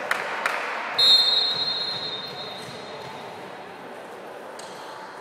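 Two sharp volleyball strikes in quick succession, then about a second in a single high, steady blast of a referee's whistle, the loudest sound, that rings on in the sports hall and fades over the next two seconds.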